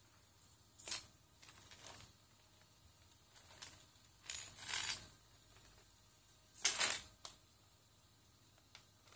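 Loose plastic Lego bricks clattering and shifting under the feet of a servo-driven legged walking robot. The clatter comes in irregular short bursts, and the loudest is about two-thirds of the way in.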